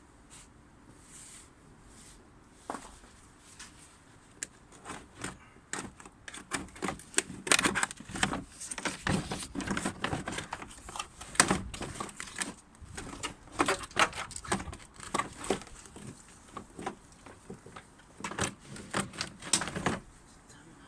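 Irregular clicking and clattering of hands-on work on a car's front end: small knocks of tools and parts being handled, sparse at first and busiest from about six seconds in.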